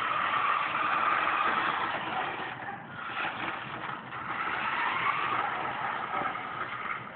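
Remote-control toy Jeep truck's electric motor and gears whirring as it drives, the whine swelling and easing as it speeds up and slows.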